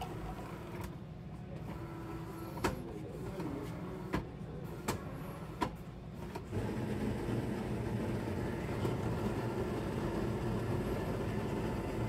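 A few sharp clicks, then about six and a half seconds in an automatic coffee machine starts up, its motor running with a steady mechanical hum.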